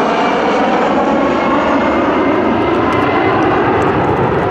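A formation of military jets flying past, their engines giving a loud, steady jet noise.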